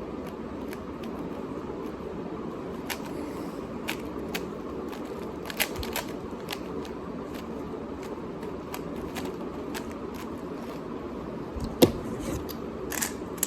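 Speedcube (3x3 puzzle cube) being turned by hand: irregular clicks and scratchy layer turns, with one louder clack about 12 seconds in, over a steady background hiss.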